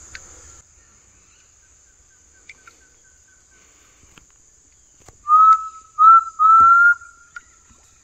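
A person whistling three short, clear, slightly rising notes to call a forest ground bird, imitating its call. Before them, a faint string of short pips sounds at the same pitch.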